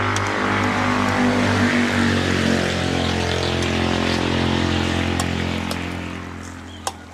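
A motor engine running steadily nearby, then fading away over the last second or two.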